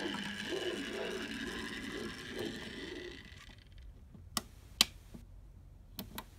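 Can motor and gears of a scratch-built HO-scale brass railcar whining with a wavering hum as it runs along the track, running noisily and unevenly, the car being off-form that day. The whine dies away about halfway through as the railcar stops, and a few sharp clicks follow.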